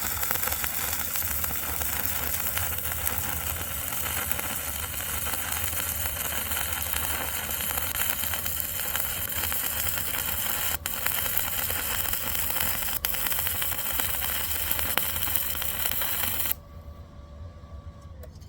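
Stick welding arc burning steadily, then cutting off suddenly near the end as the welder shuts off; the machine keeps turning off and blowing a fuse.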